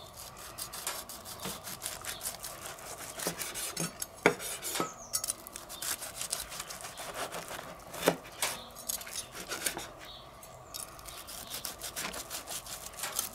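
Santoku knife slicing grilled wagyu flank steak on a wooden cutting board: a run of light clicks and scrapes as the blade saws through the meat and meets the board, with a sharper knock about four seconds in and again about eight seconds in.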